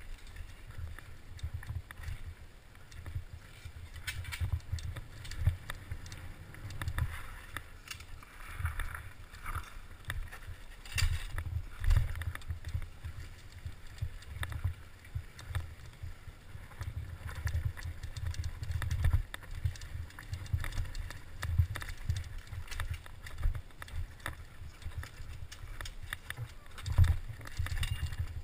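Giant Faith 2 downhill mountain bike rattling and knocking as it runs over a rocky dirt trail, with wind rumbling on the helmet camera's microphone throughout. Sharp knocks from rocks and bumps come every second or so, the hardest about twelve seconds in and near the end.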